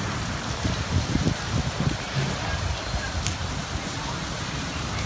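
Steady rain falling, an even hiss, with a few low rumbles between about one and two seconds in.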